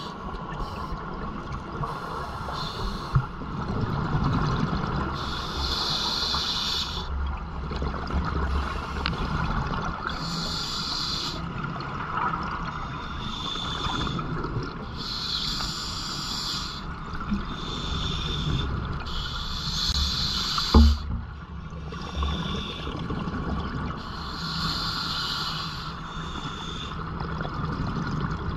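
Scuba regulator breathing underwater: a hiss on each breath in and a gush of exhaled bubbles, repeating every four to five seconds over a low rumble of moving water. One sharp knock about twenty-one seconds in.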